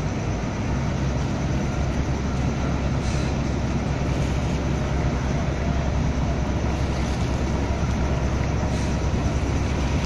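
Steady low rumble of marine diesel engines from the tug and ship working the vessel alongside during berthing, a constant hum under an even wash of noise.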